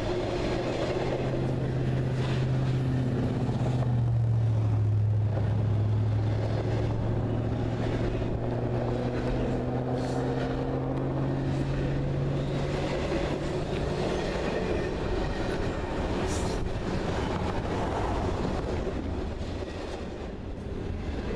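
Long freight train of container well cars and tank cars rolling past, with the steady noise of steel wheels on the rails. A low steady drone under it dies away about two-thirds of the way through.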